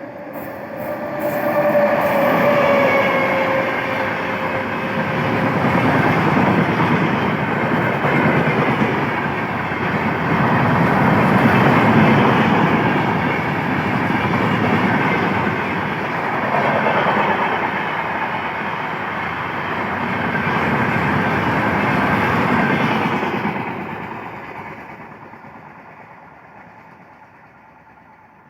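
Indian Railways passenger train behind a WAP-7 electric locomotive passing at full speed: the rush and clatter of wheels and coaches on the track builds about two seconds in, stays loud for some twenty seconds, then fades away.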